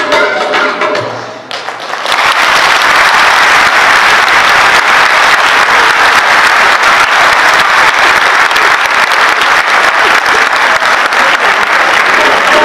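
The last notes of a children's choir song fade out, then an audience applauds steadily from about two seconds in.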